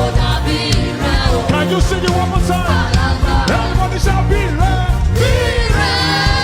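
Live gospel praise band playing, with drums and bass under wavering lead singing. A held chord comes in near the end.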